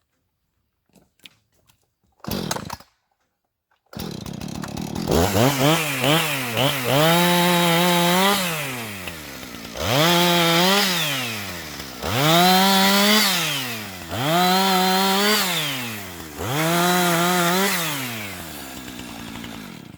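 Chainsaw starts up about four seconds in and is then revved up to full throttle about five times, each burst held for a second or so before dropping back toward idle, as it cuts slab wood held in a log holder into firewood lengths.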